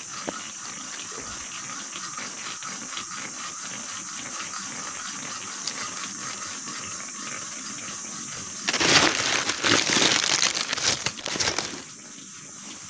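Dry leaves crackling and small stones shifting as hands feel among the rocks of a dry streambed for crabs, with a steady high hiss underneath. About two thirds of the way in, a loud rush of rustling and scraping lasts about three seconds as the phone is moved and set down among the leaves.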